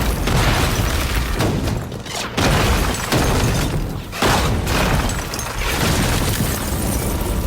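A barrage of explosions: repeated heavy booms about a second apart, with crashing and shattering debris between them.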